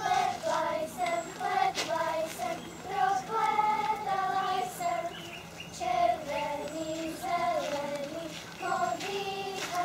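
A group of girls singing a folk song in unison, one sung melody going on without break, as they dance a round.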